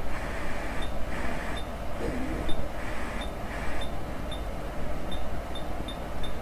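Car stereo powered by a PC power supply, its speaker giving out a steady hum and hiss while it is being switched between modes, with faint short ticks every half second or so.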